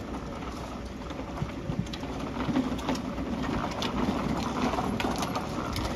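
Small wheels of a hand trolley and a pull cart rolling over asphalt, a steady rattle with scattered clicks and knocks that come more often in the second half.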